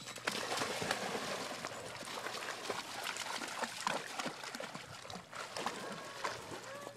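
A dog splashing and paddling as it swims out through shallow water, a steady rush of splashing with irregular slaps. A brief wavering whine comes near the end.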